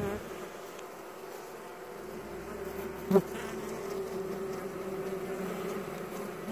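Steady buzzing hum of bees, with a single short sharp hit about three seconds in.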